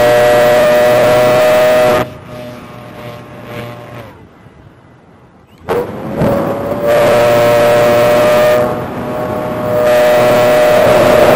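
The electric motor and five-blade propeller of an E-flite Spitfire Mk XIV 1.2m foam RC plane, heard on board as a steady high whine. The whine cuts off about two seconds in, leaving a quieter rush of air. A little before six seconds it spools back up with a rising pitch, eases off briefly near nine seconds, then returns to full power.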